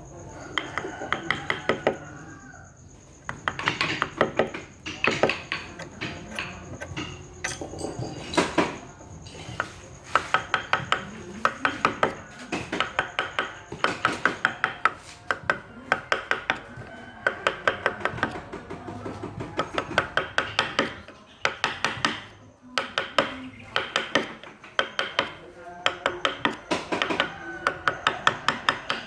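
Hand wood carving: a mallet tapping a carving chisel into wood in quick runs of about ten taps a second, each run lasting about a second with short pauses between, the strikes ringing slightly.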